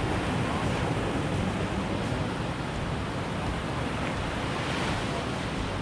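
Ocean surf breaking on a sandy beach and washing up the shore, a steady rush of water.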